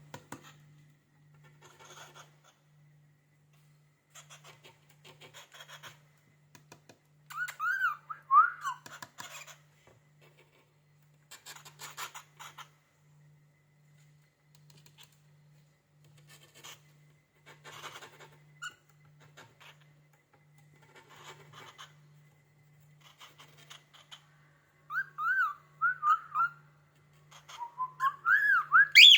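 Cockatiel whistling in short up-and-down phrases, in a bout about a quarter of the way in and louder bouts near the end. Between the whistles come repeated short scratchy scraping sounds of a finger rubbing a cabinet door.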